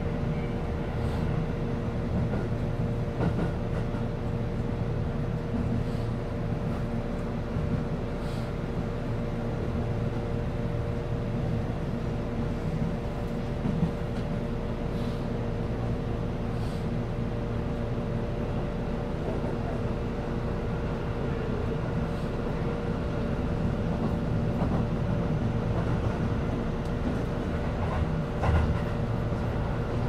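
Inside a Keihan limited express train car running between stations: a steady rumble with a humming tone, and a few faint clicks and knocks now and then.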